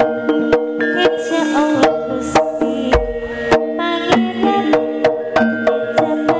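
Live Javanese jaranan music. Drums keep a quick, steady beat of about four strokes a second over ringing, held metal gamelan notes.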